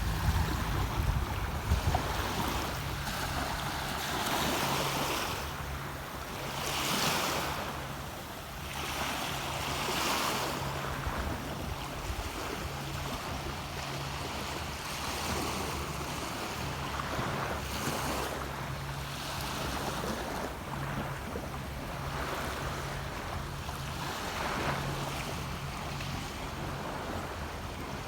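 Sea waves washing onto a sandy beach, the surf swelling and falling every few seconds, over a low steady hum.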